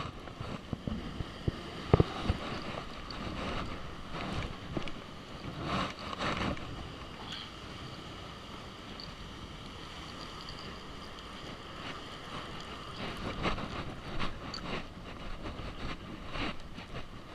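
Wind buffeting the microphone over ocean surf, with a few sharp knocks, the loudest about two seconds in.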